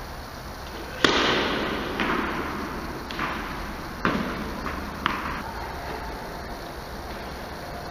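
A tennis racket striking the ball on a kick serve about a second in: one sharp crack that echoes through a large indoor tennis hall. Four fainter knocks follow about a second apart, the ball bouncing around the court.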